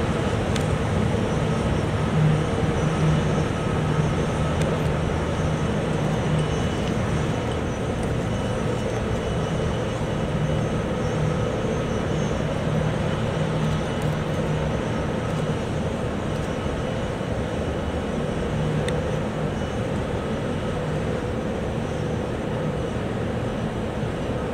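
Type 45 destroyer's machinery and exhausts running as the ship passes close by: a steady rushing drone with a low hum, easing slightly toward the end.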